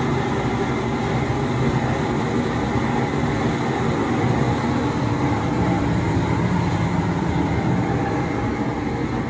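High-pressure propane burner under a large boil pot running at full flame: a steady, deep rushing roar that sounds like a jet engine.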